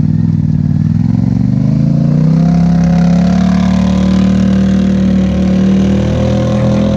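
Polaris Sportsman Highlifter 850's twin-cylinder engine running through a Big Gun aftermarket exhaust, tuned with the Power Box at Big Gun's recommended settings. It revs up as the ATV pulls away, the note rising over the first two seconds or so and then holding steady and loud.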